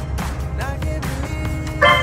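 Background music with a singing voice, over a low steady rumble, and a short, loud stacked tone near the end.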